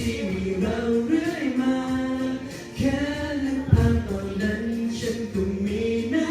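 A song playing: a voice sings long held notes that slide between pitches, with no clear words, over a soft accompaniment.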